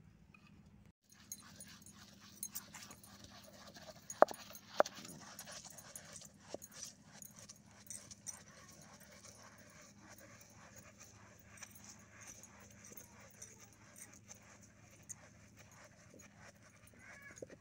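Stone hand mill being turned on its stone base, grinding rice and urad dal: faint gritty scraping with scattered clicks and two sharp knocks about four seconds in. A few short high-pitched calls come in near the end.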